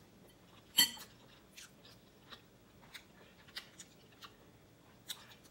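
Person eating instant ramen noodles: a short loud mouth sound about a second in, then quiet chewing with small scattered mouth clicks.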